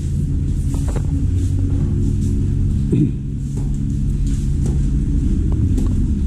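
An engine idling with a steady low hum, with a few light knocks and clicks over it.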